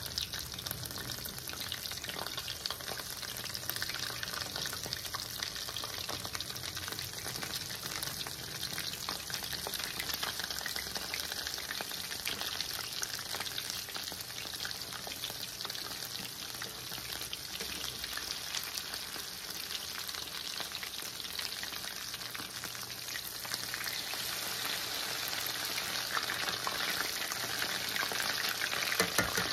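Battered chicken strips deep-frying in hot oil in a stainless steel pan: a steady, dense crackling sizzle that grows a little louder near the end.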